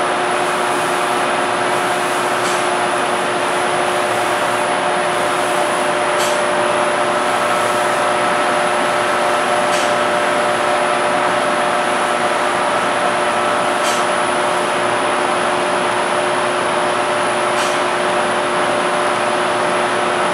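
Automatic spray-finishing machine running: an even hiss with several steady humming tones, and a short tick every three to four seconds.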